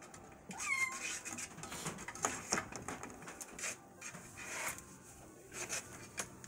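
Kittens scrabbling and clawing about, a run of quick scratchy rustles, with a short falling kitten mew about half a second in.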